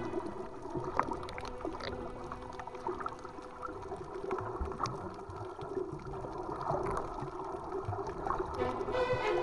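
Muffled water sloshing and gurgling, with scattered small clicks and pops throughout, picked up by an action camera in the water.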